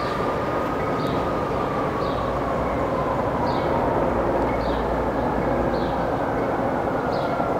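Aircraft passing overhead: a steady rumble with a faint whine that slowly falls and then rises in pitch. Short high chirps repeat about once a second over it.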